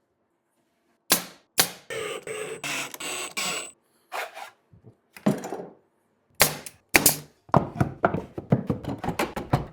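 Woodworking tool sounds in quick succession: a few sharp knocks, a power tool running for about two seconds, then more knocks that speed into a fast run of sharp knocks and clicks near the end.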